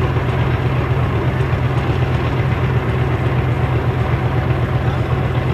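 Engine of a tracked military vehicle running steadily at idle, a constant low throbbing hum.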